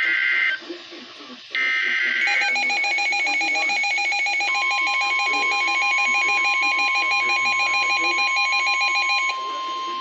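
Midland NOAA weather radio sounding an emergency alert: two short buzzy data bursts of the alert header, then the radio's rapid pulsing alarm. About four seconds in, the steady weather-radio warning tone joins it and carries on after the pulsing alarm stops near the end.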